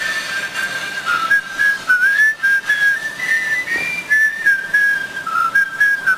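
A man whistling a tune, a single clear note at a time, stepping up and down between short held notes.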